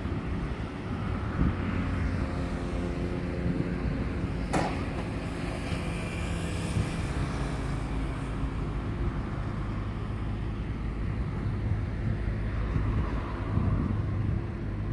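Steady outdoor rumble with a passing vehicle's engine hum, holding a pitch for several seconds in the first half, and one sharp click about four and a half seconds in.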